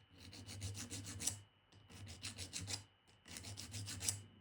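A file rasping on the metal of a lock cylinder's worn inner housing in three runs of quick strokes with short pauses between them. The housing is being filed down so that it will slide out of the outer housing.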